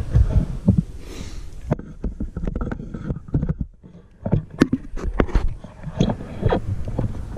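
Close handling noise of a rubber hose being worked onto a fitting under a plastic housing: irregular clicks, knocks and scrapes, with a brief lull about four seconds in.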